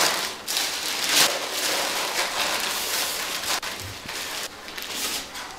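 Paper rustling and crinkling in uneven surges as bamboo bowls are wrapped by hand in sheets of paper, louder at first and easing off after a few seconds.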